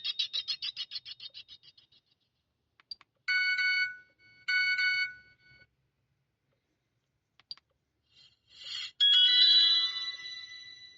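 Digma Linx A106 phone playing its built-in ringtones through its small speaker. A fast pulsing tone fades out, then two short ringing bursts follow. After a brief lull and a click, another ringtone starts about nine seconds in and fades away.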